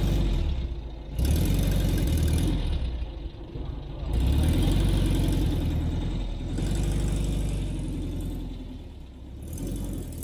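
1973 Volkswagen Kombi's air-cooled flat-four engine pulling away and driving off, with a low, pulsing rumble that swells twice as it picks up speed and eases off near the end as it moves away.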